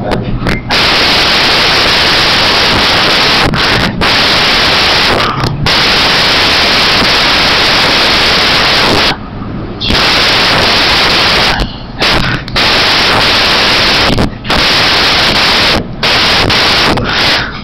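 Loud, harsh static hiss that drops out briefly several times, the longest gap about nine seconds in.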